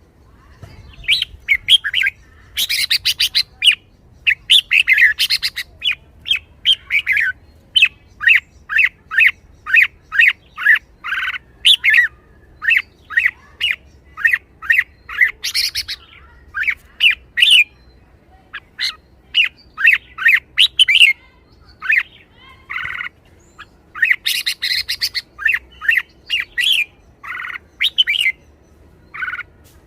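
Red-whiskered bulbul calling: a long run of short, sharp whistled notes, one or two a second, broken by several bursts of rapid, harsher chatter.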